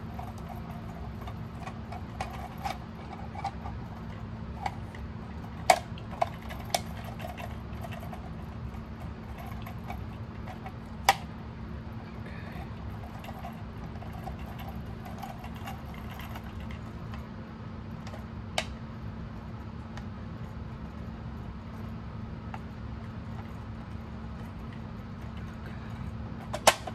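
Black plastic Kit-Cat Klock being handled as its back cover is fitted on: scattered plastic clicks and knocks, with a few sharper snaps about six and eleven seconds in, over a steady low hum.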